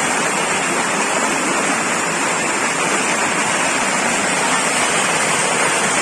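Waterfall water pouring and splashing close onto the microphone, a loud, steady rush of falling water.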